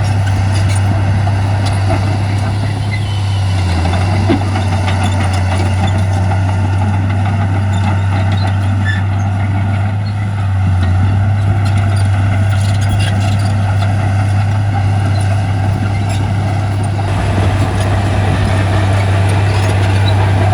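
Heavy diesel earthmoving equipment, a bulldozer and dump trucks, running with a steady deep engine drone. The level dips slightly twice, and there is one short knock about four seconds in.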